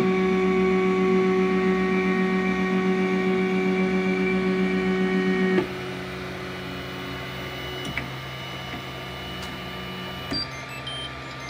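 3D printer running, its stepper motors giving a whine of several steady tones; about five and a half seconds in the sound drops sharply to a quieter steady hum, with a faint click or two afterwards.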